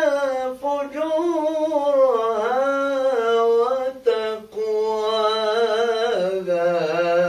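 A man reciting the Quran in the melodic, sung style, holding long ornamented notes whose pitch waves and slides up and down, with a short breath about four seconds in.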